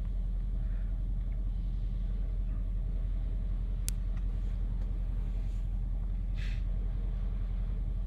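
Mercedes-Benz GLE (W166) engine idling steadily, a low even hum, with one sharp click about four seconds in.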